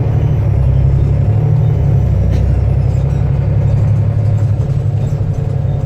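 Volvo B7TL bus's diesel engine running with a steady, loud low rumble.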